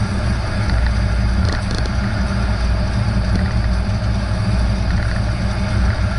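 Steady road and wind noise of a car cruising at highway speed, about 73 mph, heard from inside the cabin, with a deep, even rumble from the tyres on the pavement.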